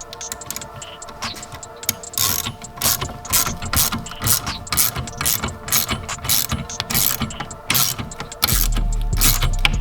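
Hand ratchet clicking in short runs as a bolt is worked on a car. Background music with a heavy bass comes in near the end.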